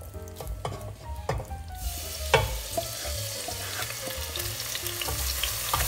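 Wooden spatula scraping cooked ground beef out of a frying pan into a pot of hot vegetable oil, with sharp clicks of spatula on pan. About two seconds in the meat hits the oil and a steady sizzle starts as it begins to fry.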